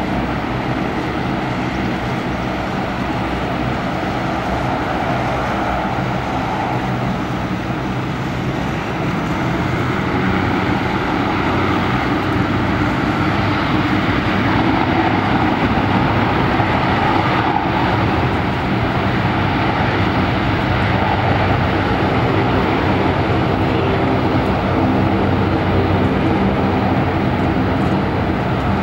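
Bombardier Dash 8 Q400 turboprop airliner at takeoff power, a steady propeller drone with low tones, growing louder from about ten seconds in as it rolls down the runway.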